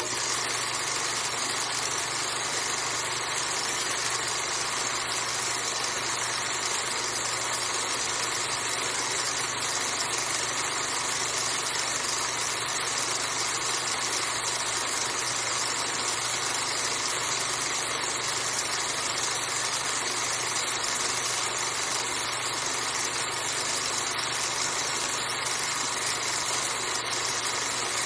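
Film projector running steadily: a constant mechanical whir with a low hum underneath, unchanging throughout.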